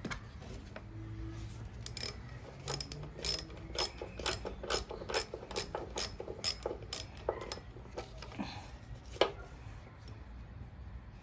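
Ratchet wrench clicking in a steady series of about two clicks a second for several seconds, then one last click: a fastener being worked loose on the mower's carburetor.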